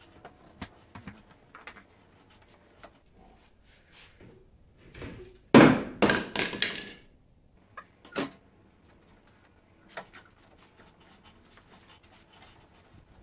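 Hand work on an old station wagon's tailgate trim and panels: scattered sharp clicks and knocks. About halfway through comes a loud, rough run of several quick sounds in a row.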